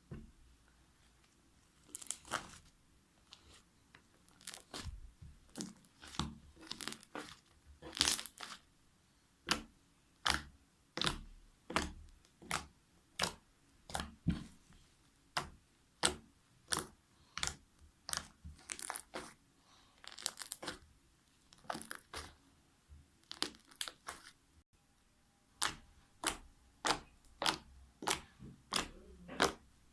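Fluffy shaving-cream slime being squeezed, stretched and pressed by hand, giving sharp sticky pops and crackles about every half second to second, with a short pause about three-quarters of the way through.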